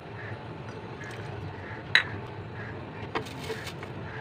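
Spices being spooned into a plastic blender jar: a sharp tap of the spoon on the jar about halfway through, then a short scraping rustle as the spice slides in, over a steady low hum.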